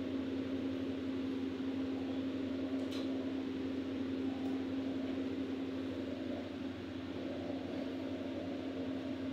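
Steady mechanical hum of a fan motor with a constant low tone, and a faint click about three seconds in.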